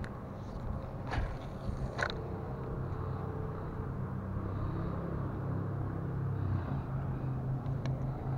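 Newport 62 lb-thrust electric trolling motor running with a steady low hum. Two short clicks come about one and two seconds in.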